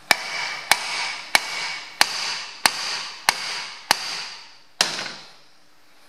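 Eight hammer blows on a steel flying-saucer puller clamped to a tractor steering wheel, about one and a half a second, each strike ringing briefly. The last comes a little late. The blows shock a very tight steering wheel that the puller alone won't free from its column shaft.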